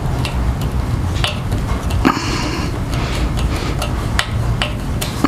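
Small metallic clicks and clinks of screws and a Phillips screwdriver on the metal fuel pump cover of a BMW K100's fuel tank, scattered irregularly over a steady low hum.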